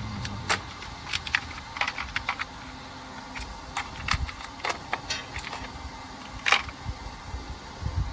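Small metal taps and dies clicking against a plastic tap-and-die set case and each other as they are handled and picked out: a scatter of irregular light clicks, with one louder clack about six and a half seconds in.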